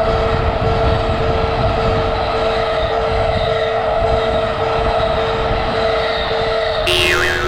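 Japanese railroad crossing alarm ringing a single repeated tone, about two strikes a second, over the low rumble of a train. Near the end the ringing gives way abruptly to a different steady, lower tone with a brief wavering whistle-like sound.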